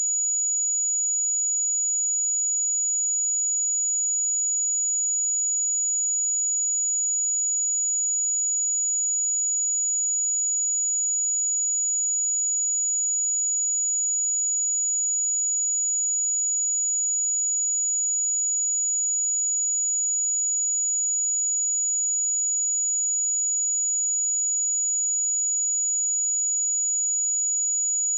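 A pure 6861 Hz sine-wave test tone, a single steady high-pitched whistle held at constant level, used for checking speakers and headphones.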